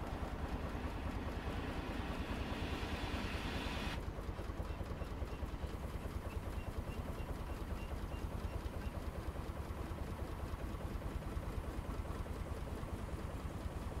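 Vintage engine running steadily with a fast low throbbing pulse. A rushing hiss builds for a few seconds near the start and cuts off suddenly.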